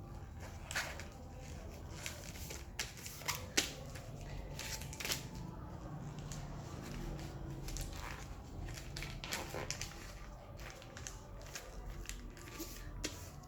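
A sheet of calendar paper being folded and creased by hand, with irregular crinkles and rustles as the folds are pressed flat.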